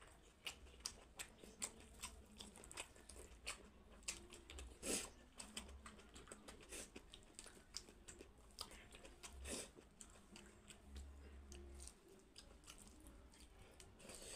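Faint, irregular soft clicks and wet squelches of fingers mixing rice with dal on a steel plate, with chewing among them; a couple of louder clicks about five and nine seconds in.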